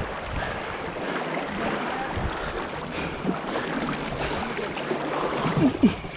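River water rushing steadily, an even noisy wash.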